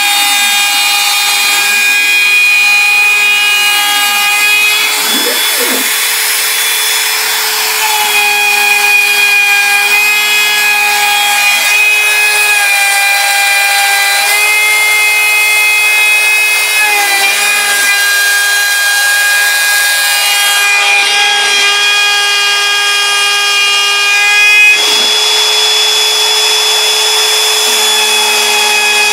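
Bosch Colt palm router on a CNC Mogul machine spinning a 1/8-inch two-flute bit, making a profile cut through bamboo board. It gives a steady high whine with overtones, and the pitch steps down and back up several times.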